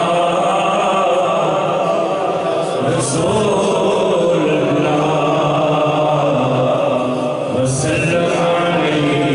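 Men chanting a devotional recitation in continuous melodic lines, amplified through microphones.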